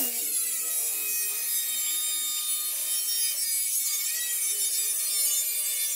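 Angle grinder with a cutting disc slicing through thin sheet metal: a steady high whine over a hissing rasp of the disc on the steel.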